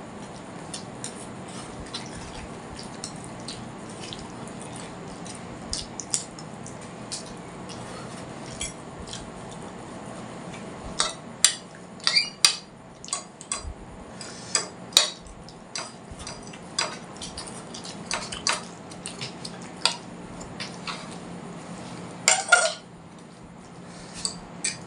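Cutlery clinking and scraping against plates while noodles are eaten: scattered sharp clinks that grow more frequent and louder from about halfway, with a loud cluster near the end. A steady low hum runs underneath.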